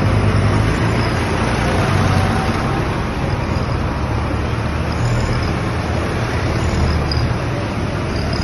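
Diesel tractor engines running as a line of tractors drives past, a steady low engine drone with tyre noise from the wet road.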